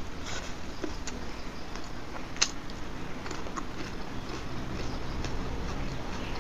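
Close-miked eating sounds: a mouthful of rice and dal being chewed, with small wet mouth clicks and one sharp click about two and a half seconds in.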